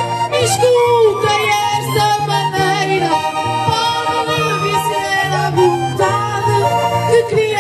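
Instrumental Minho folk music played between sung verses: an accordion carries a lively melody over a steady alternating bass, with guitar.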